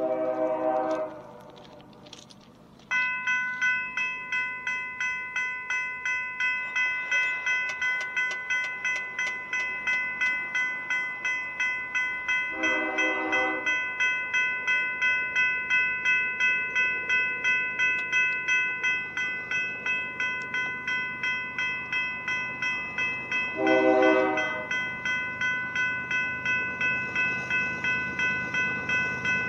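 A grade crossing warning bell starts ringing about three seconds in and keeps a steady ring of about two strokes a second, the sign that the crossing has been activated for an approaching train. Over it, the approaching BNSF freight locomotive's air horn sounds three short blasts of about a second each, at the start, midway and near the end.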